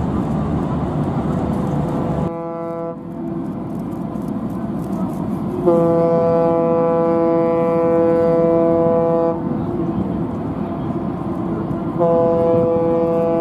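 Royal Wing's ship whistle sounding a farewell to a departing ferry: a deep horn with many overtones, one long blast of about three and a half seconds, then a second long blast starting near the end. Before it comes a rushing noise that stops abruptly about two seconds in, followed by a brief fading horn note.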